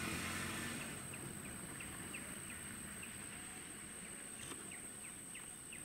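Forest ambience: a bird repeating short, falling chirp notes about two to three times a second over a steady high-pitched whine, with a low rumble that fades out in the first second.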